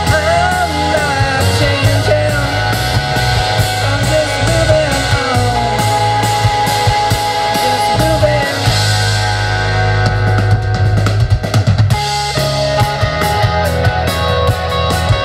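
Live rock band playing an instrumental passage of a song: electric guitars with a wavering, bent-note guitar line, bass guitar and drum kit. The top end of the drumming falls away for a couple of seconds about ten seconds in, then comes back.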